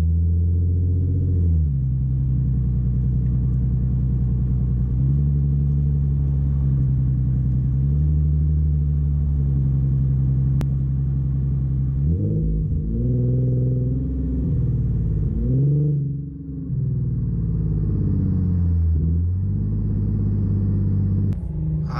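Infiniti Q50's engine and exhaust running as the car drives, heard from beneath the car as a low, muffled drone. Its pitch falls and climbs several times as the car speeds up and eases off.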